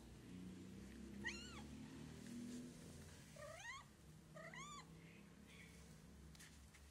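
White stray cat meowing three times: short meows that rise and fall in pitch, one about a second in and two close together a couple of seconds later.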